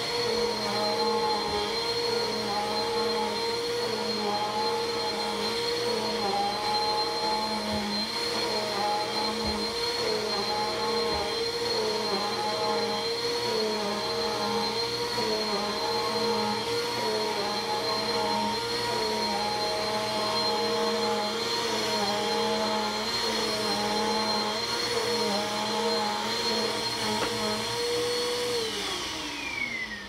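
Upright vacuum cleaner running with a steady motor whine, its tone wavering about once a second as it is pushed back and forth over the floor. It is switched off near the end, and the whine falls away as the motor spins down.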